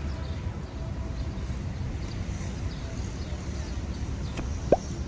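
City park ambience: a steady low rumble of distant traffic, with one short, sharp sound about four and a half seconds in.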